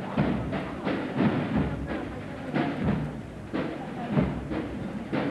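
Drums beating with repeated strokes, a few each second.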